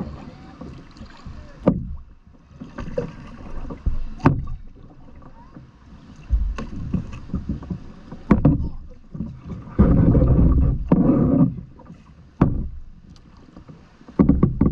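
Kayak paddling: paddle blades dipping and splashing about every two seconds, with water sloshing against the plastic kayak hull. There is a longer stretch of splashing about ten seconds in.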